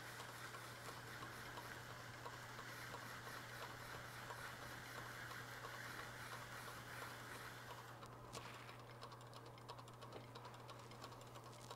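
Wood lathe running with a faint steady low hum while a wet Micro-Mesh pad rubs on the spinning CA-finished turning. From about eight seconds in, a fast patter of light ticks.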